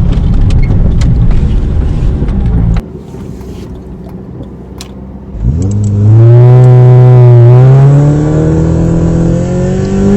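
Car driving with a loud low rumble that cuts off about three seconds in. After a quieter stretch, a car engine revs up about halfway through, its pitch climbing steadily as it accelerates, and it stays loud to the end.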